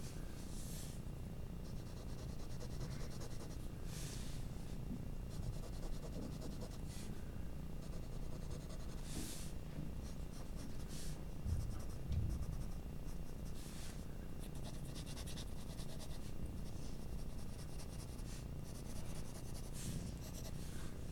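Graphite pencil strokes on paper, a run of separate scratching strokes, some short and some drawn out, as lines are drawn in, over a low steady hum.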